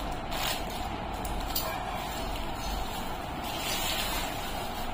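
Plastic packaging and a plastic bag rustling and crinkling as they are handled, over a steady background hiss.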